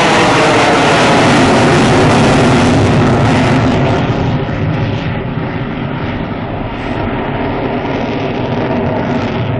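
Eurofighter Typhoon's two EJ200 turbofan engines in afterburner passing overhead: a loud, steady jet roar that turns slightly quieter and duller after about four seconds.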